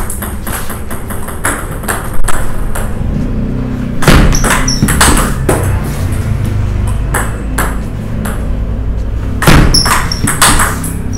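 Table tennis ball clicking off the bats and the table in short rallies of several quick hits, about every five seconds: a fast long serve, the return and a third-ball forehand topspin attack. Soft background music runs underneath.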